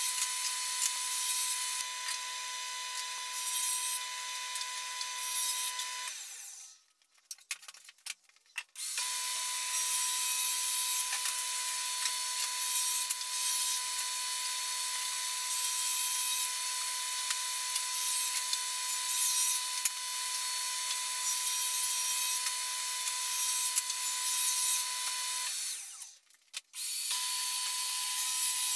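Table saw running with a steady motor whine while its blade rips plywood panels, with the hiss of the cut over the whine. The sound breaks off twice for a second or two.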